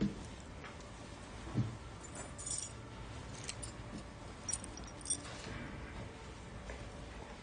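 Coats being hung on wall hooks by the front door: a soft thump at the start and another about a second and a half in, then several small jingling clinks, as of keys or fittings, as the fabric is handled.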